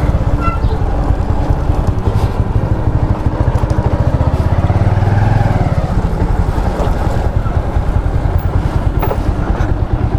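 Motorcycle engine running as the bike is ridden, with a fast, even firing beat and some wind noise on the microphone. It grows briefly louder about five seconds in.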